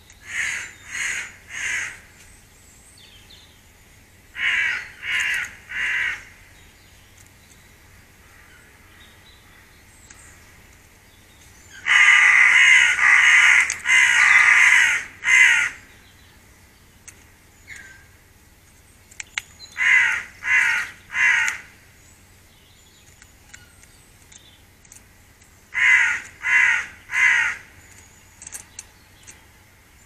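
A crow-family bird cawing harshly, in sets of three calls repeated every several seconds, with a longer, louder run of caws in the middle.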